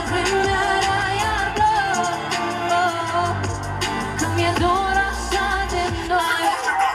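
Pop song performed live through a concert sound system: a sung melody over a backing track with a steady beat.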